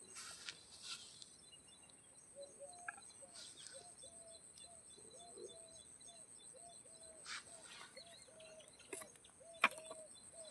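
A bird calling the same short, low note over and over, about twice a second, starting a couple of seconds in. A few short clicks and a steady thin high whine lie underneath.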